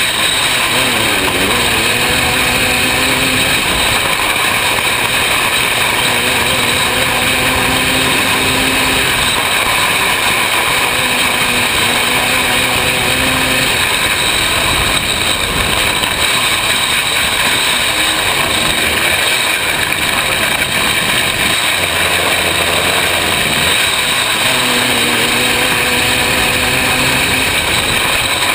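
500cc micro sprint car's engine running hard at racing speed, loud and unbroken, its pitch dipping and climbing again and again around the laps of the oval.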